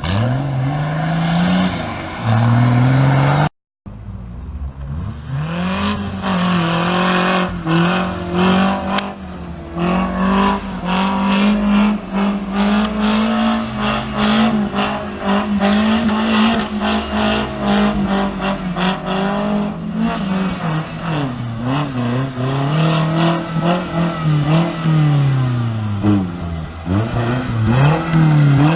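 Off-road 4x4 engine revving hard, its pitch climbing and dropping again and again with the throttle. The sound cuts out briefly about three and a half seconds in, then comes back.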